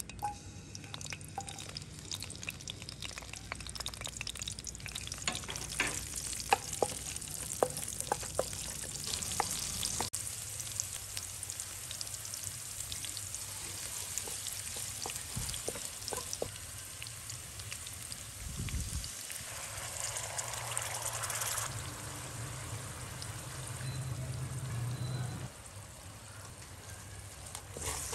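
Sliced garlic and red chillies sizzling in hot oil in a wok, with a wooden spatula stirring and scraping against the pan; the spatula's clicks come thickest between about five and nine seconds in.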